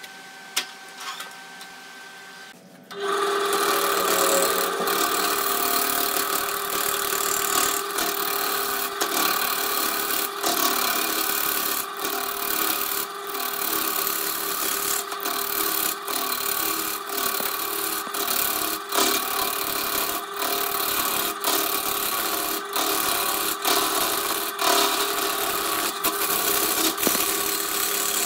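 A wood lathe starts up about three seconds in, and a gouge then cuts into the spinning rough-hewn log blank. A steady motor hum sits under loud scraping cutting noise with frequent brief knocks as the tool bites into the uneven wood.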